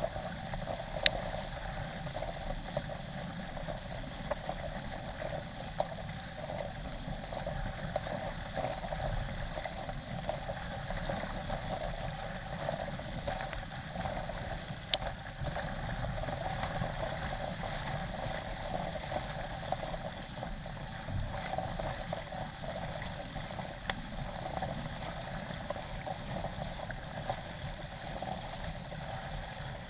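K1 racing kayak under way: a steady rush and splash of water along the hull and paddle blades, with a few sharp clicks.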